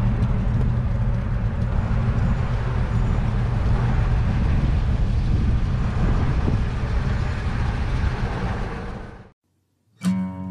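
1953 Chevrolet panel truck's inline-six running steadily at low speed, a low, even rumble mixed with wind noise, cutting off suddenly near the end.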